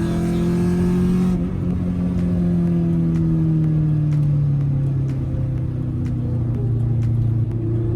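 A 1996 Acura Integra's four-cylinder engine, straight-piped, revs up under throttle, then comes off throttle about a second in, its pitch falling steadily for a few seconds before settling to a steady drone, heard from inside the car.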